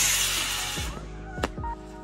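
Electronic background music with a kick-drum beat and sustained synth tones. A loud rush of hiss fades away over the first second, and a single sharp crack comes about a second and a half in.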